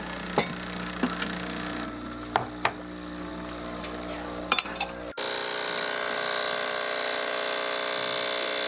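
Breville Barista Express espresso machine's pump running while a shot brews, a steady hum with a few light clicks and clinks over the first five seconds. About five seconds in it changes suddenly to a louder, higher buzz.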